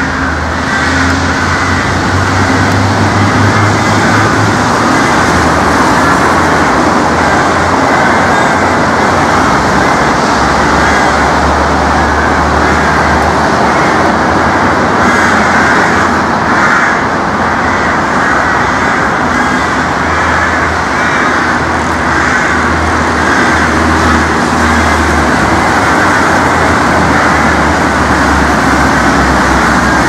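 Steady road traffic noise, with the low hum of passing vehicle engines rising and fading over several seconds at a time.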